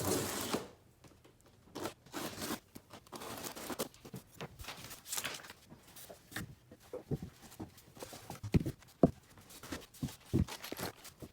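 Packaging of a cat tower kit being torn open and handled, with repeated ripping and rustling strokes and several sharp knocks about eight to ten seconds in.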